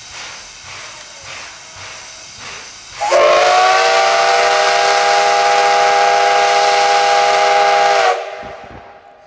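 Steam locomotive's departure whistle blown once for about five seconds, sounding several pitches at once with a hiss of steam. It starts about three seconds in and cuts off sharply near the end, signalling the train pulling out.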